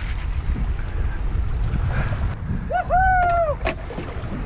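Wind buffeting the microphone aboard a small boat on open water. About three seconds in there is one high call lasting about a second that rises, holds and then falls, followed by a couple of sharp clicks.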